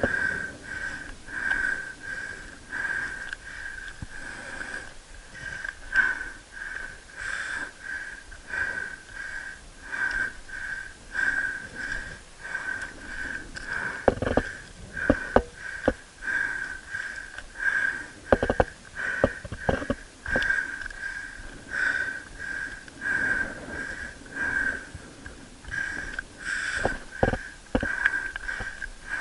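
Heavy, rhythmic breathing of a climber exerting himself, about three breaths every two seconds. Sharp knocks and scrapes of hands and boots on rock come in the middle and again near the end.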